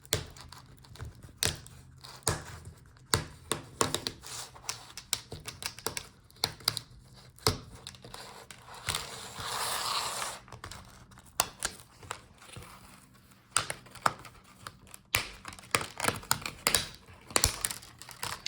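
Plastic display bezel of an Acer Predator Helios 300 laptop being pried off, its snap clips clicking and popping loose in many sharp clicks, with a longer scraping rustle of plastic about halfway through.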